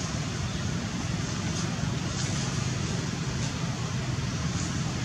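Steady outdoor background noise, mostly a low rumble with a faint hiss above it, with no distinct events.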